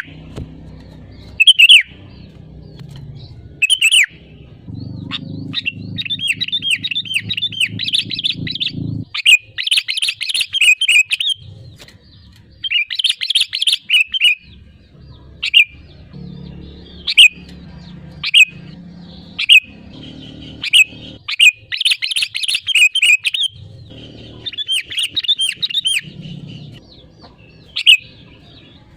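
Sooty-headed bulbul (kutilang) singing in full voice: single short chirps a couple of seconds apart, broken by several fast runs of rapid notes lasting two to three seconds each. A low rumble comes and goes underneath.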